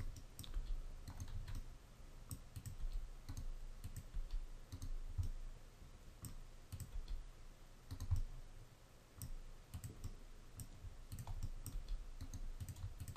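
Faint computer mouse clicks and keyboard key presses at irregular intervals, as mesh vertices are grabbed with the G key and dragged, with soft low thumps underneath.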